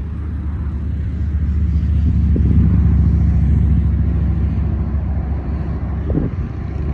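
Low rumble of a passing vehicle with a steady low hum in it, swelling to its loudest about three seconds in and then slowly fading.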